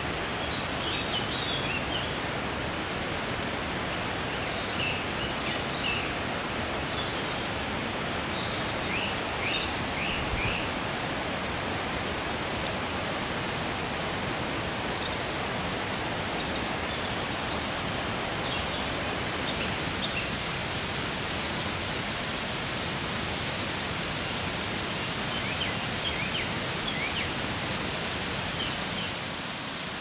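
Forest ambience: a steady, even rushing noise with small birds chirping and trilling over it, the birds mostly in the first two-thirds. The rush turns brighter about two-thirds in.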